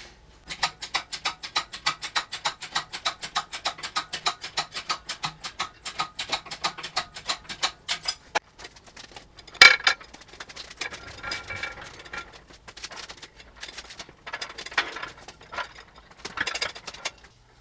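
A hoist's ratchet clicking rapidly and evenly, about six sharp metallic clicks a second for some eight seconds, as the cast iron surface plate is lifted off the machine column. Then a single loud metal knock about ten seconds in, followed by a few softer clunks and scrapes.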